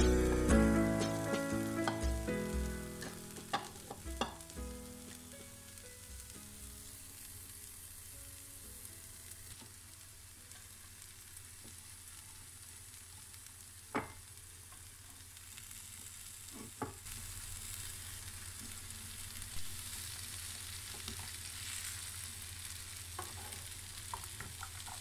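Diced carrots, tomatoes and broad beans sizzling in oil in a frying pan, with a few sharp clicks of a utensil against the pan. Background music fades out over the first few seconds.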